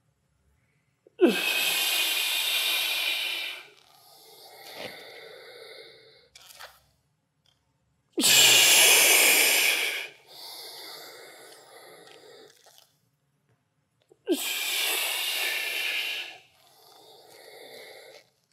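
A man breathing hard and in rhythm during a push-up exercise: three long, loud, forceful breaths through the mouth, about six seconds apart, each starting with a brief voiced catch and followed by a quieter, softer breath.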